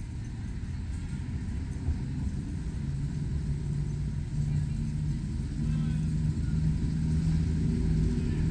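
A motor vehicle engine running steadily with a low hum, growing louder from about three seconds in, over a low traffic rumble.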